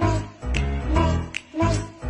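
Background music with a steady, bass-heavy beat about twice a second and short melodic notes.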